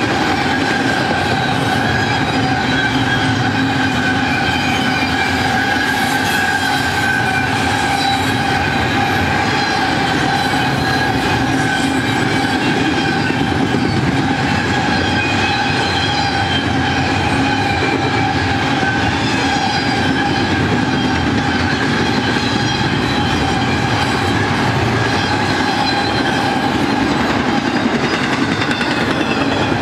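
Double-stack intermodal well cars rolling past close by: a steady rumble and rattle of steel wheels on the rail, with a continuous high-pitched wheel squeal ringing over it.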